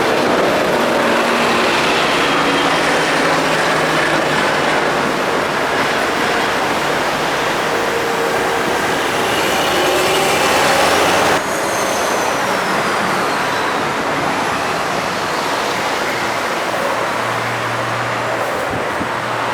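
Heavy diesel machinery running loudly and steadily: an excavator and a stuck, soil-laden dump truck working. The level drops suddenly about halfway through.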